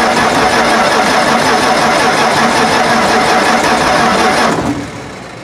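Starter motor cranking the Massey Ferguson 300 combine's choked, carbureted engine on a cold start without it catching. The cranking stops about four and a half seconds in and winds down.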